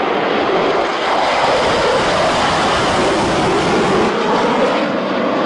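Fighter jet engine noise from a low-flying jet: a loud, steady rush that swells a little in the lower range through the middle.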